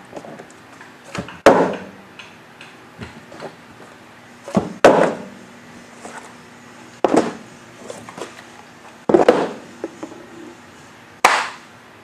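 A partly filled plastic water bottle being flipped and landing on a wooden floor: five loud thuds about two seconds apart, with fainter knocks between them.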